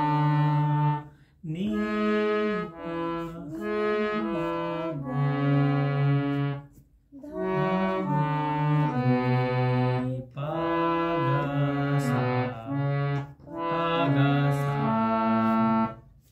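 Harmonium playing a sargam practice exercise: held notes stepping up and down the scale, in several short phrases with brief breaks between them.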